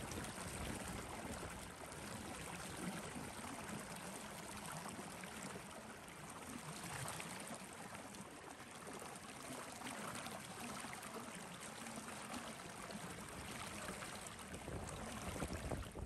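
Steady rushing noise with an uneven low rumble underneath.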